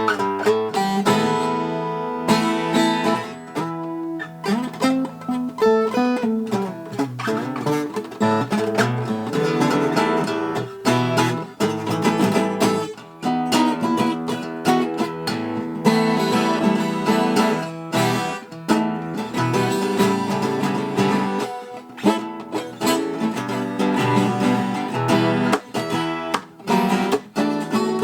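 Music played on a plucked string instrument: a continuous run of picked notes and chords.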